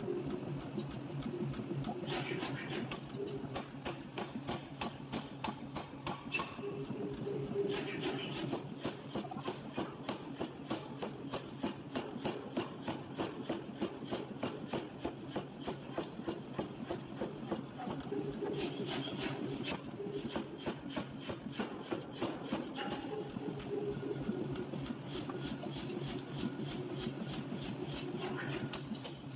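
Power forging hammer striking a red-hot steel ring on the anvil in rapid, evenly spaced blows.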